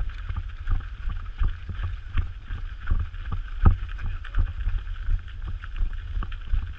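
Runners' footfalls on a packed dirt forest trail, a steady beat of about three steps a second, over a low rumble of wind on the microphone.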